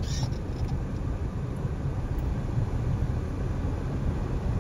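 Steady low rumble of vehicle engines, heard from inside a car's cabin as it crawls along a dirt track.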